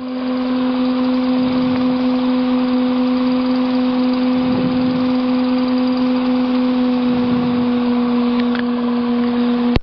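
Steady engine drone in the cabin of a Cessna 150 taxiing at low power: one even, unchanging hum with overtones, which cuts off suddenly with a click near the end.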